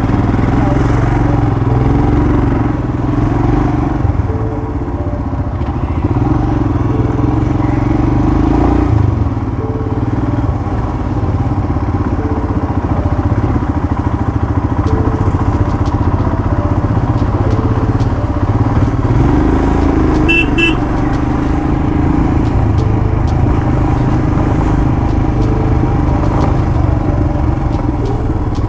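Motorcycle engine running steadily while being ridden. A short horn beep sounds about two-thirds of the way through.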